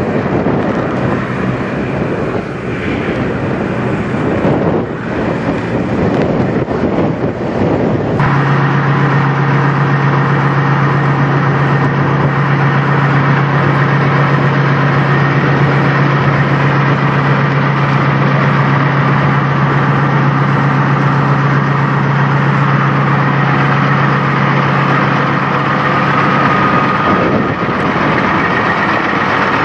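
Peterbilt semi truck's diesel engine: for the first several seconds a rough, rushing noise as the truck rolls past, then from about eight seconds in the engine idling steadily close by with a low, even hum. The hum changes near the end.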